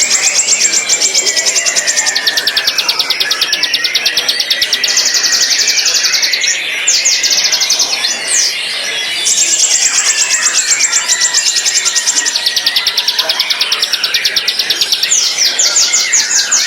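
White-rumped shama (murai batu) singing long, fast, high trills that stop and restart several times, with short sweeping whistled notes between them.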